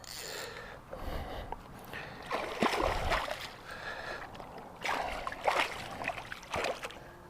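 Water splashing and sloshing in several irregular bursts, the loudest about two and a half seconds and five and a half seconds in, as a caught fish thrashes in the shallows at the river's edge.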